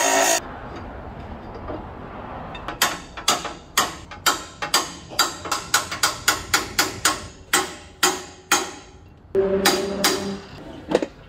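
A bench grinder grinding steel stops in the first half second. Then a hammer strikes a steel tube being fitted into a sandrail roll cage, about twenty sharp blows at two to three a second.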